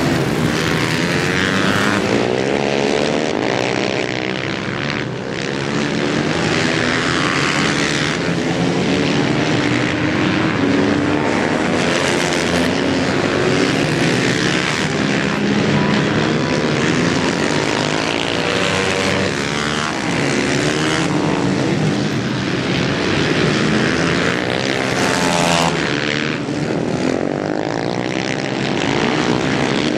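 Several racing motorcycle engines revving up and down without a break, their pitches rising and falling over each other as the supermoto bikes accelerate and brake around the circuit.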